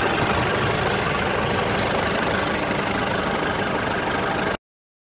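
Diesel engine of a Nissan NT400 truck idling steadily with its bonnet open, cutting off suddenly near the end.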